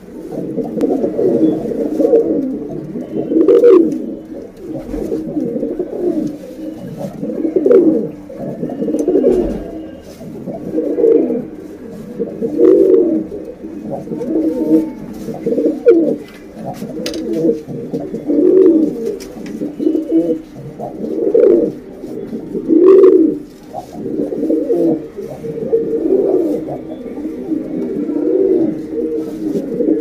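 Domestic pigeons cooing, several birds overlapping in a continuous run of low coos that swell and fade every second or two. The cooing is presented as a female pigeon's call to draw males.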